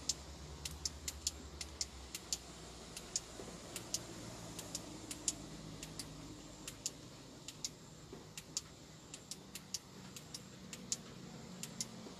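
Irregular sharp clicks, about two or three a second, over a low steady hum that drops away about two seconds in.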